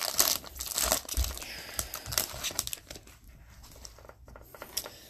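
Foil wrapper of an Upper Deck Series 2 hockey card pack crinkling and tearing as it is opened, busiest for the first two and a half seconds, then quieter rustling with a few light clicks.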